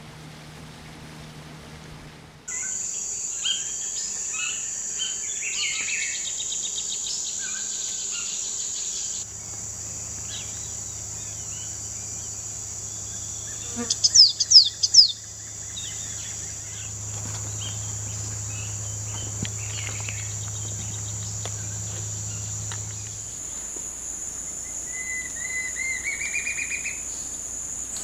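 A faint outboard-motor hum at first, then a steady high insect drone of cicadas or crickets with tropical forest birds calling over it. About halfway there is a quick run of loud, sharp, high calls falling in pitch. Near the end comes a short series of whistled notes rising in pitch.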